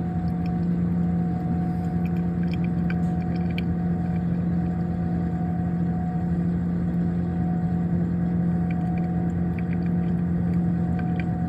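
Refrigerator's compressor and condenser fan running, a steady hum with a strong low tone.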